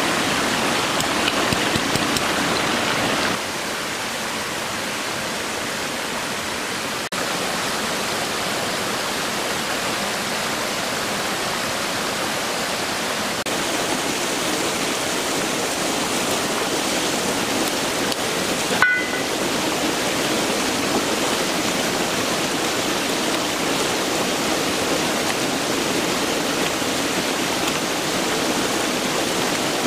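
Rushing water of a rocky mountain stream, a steady even noise, with a short click about two-thirds through.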